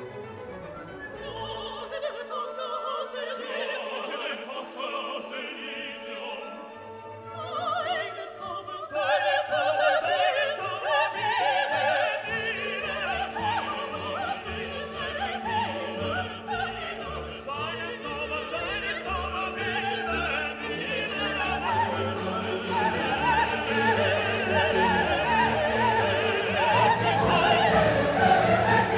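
Orchestral classical music with operatic singing, growing louder about eight seconds in.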